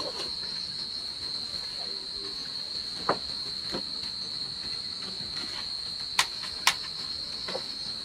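Insects chirring in one steady, unbroken high-pitched drone. A few sharp knocks come through it, one about three seconds in and two more a little after six seconds.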